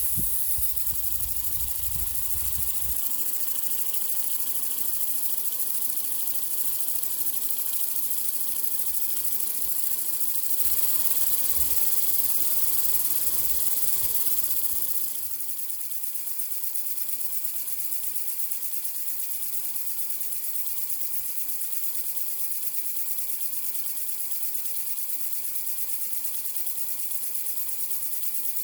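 Small 3D-printed oscillating-cylinder air engine running on compressed air: a steady, fast hiss of exhaust air. It grows louder about ten seconds in and drops back a few seconds later.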